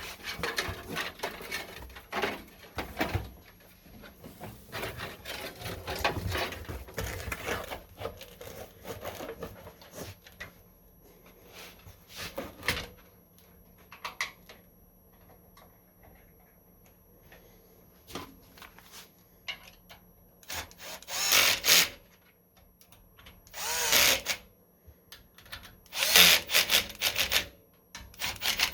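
Handling and fitting of PC parts with clicks and rattles, then short, loud bursts like a small power screwdriver driving screws, four times in the second half.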